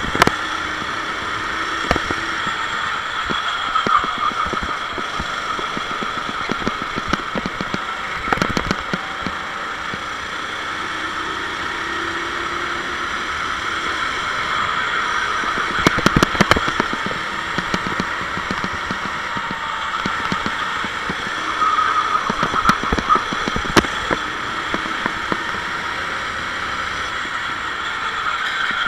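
Sodi SR4 rental kart's engine running steadily under load, heard from the kart itself, with a few sharp knocks about eight and sixteen seconds in.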